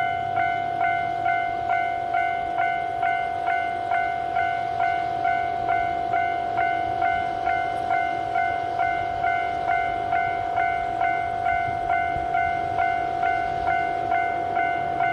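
Japanese railway level-crossing alarm ringing its repeated bell strikes, about two a second, over a steady tone. A faint low rumble lies underneath.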